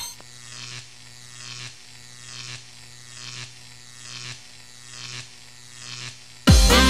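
Plasma ball buzzing: a steady low hum with a falling high-pitched sweep about once a second. Loud music cuts in just before the end.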